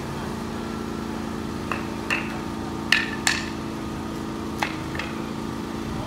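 An engine running steadily under about six sharp metal clanks. The two loudest come close together in the middle and ring briefly.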